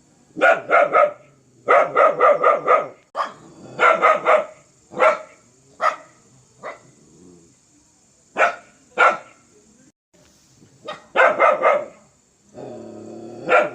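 A dog barking fiercely in bursts of several quick barks, with single barks between the bursts. Near the end there is a longer, drawn-out growl just before another bark.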